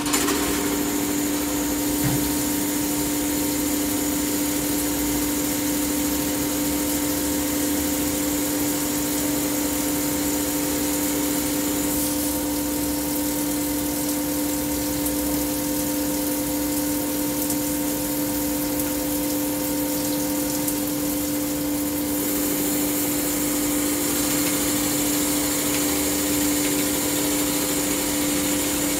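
Metal lathe running and turning a steel part with coolant spraying on the cut: a steady machine hum with one constant tone over an even hiss.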